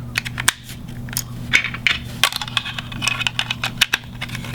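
Quick, irregular plastic clicks and rattles from a battery-powered thermostat being handled and its cover snapped back on, over a steady low electrical hum.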